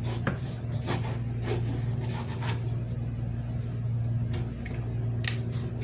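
Kitchen knife cutting into a whole queenfish on a countertop, making scattered small clicks and scrapes over a steady low hum.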